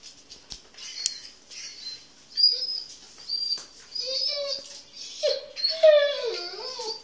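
Dog whining in an excited run of high-pitched squeals and cries. It builds to a louder, wavering whine that falls in pitch near the end, the noise she makes when about to go for a walk.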